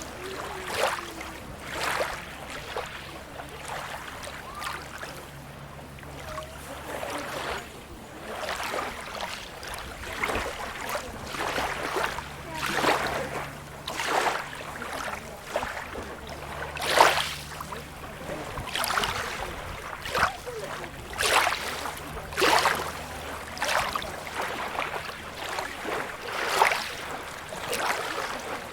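Small waves lapping and splashing at the water's edge over a steady rush of flowing water, a short splash every second or two, the loudest about 17 seconds in.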